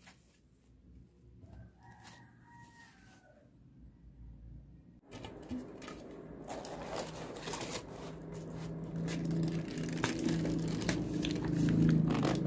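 Handling sounds: a cloth wrapping rustling, then a ceramic plate and an aluminium cake tin being set down over a steamed pudding, with many small clicks and knocks. A faint bird call, which PANN tags as a rooster's crow, comes early on in the quieter part.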